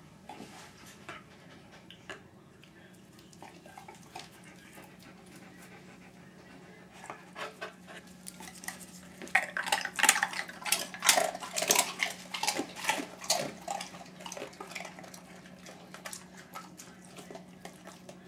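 Border collie puppy crunching a hard liver fortune-cookie treat: a run of crisp crackling bites, loudest in the middle and tapering off, over a faint steady low hum.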